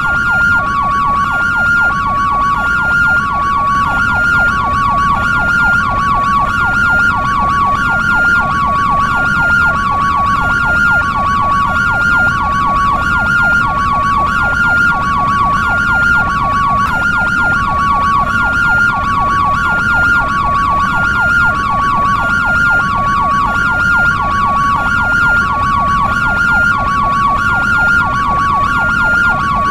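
European ambulance siren in two-tone hi-lo mode, switching between a higher and a lower pitch about every half second without a break. Under it runs a fast repeating warble, in keeping with a yelp tone played at the same time.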